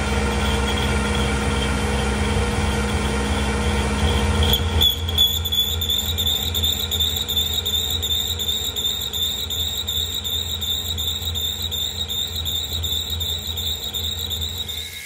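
Portable line-boring machine running, its boring bar cutting steel in a worn pin bore: a steady low drive hum under a high steady whine from the cutter, which grows louder about five seconds in.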